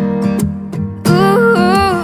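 Background music: a song with guitar, and a melody line that starts again about a second in after a brief lull.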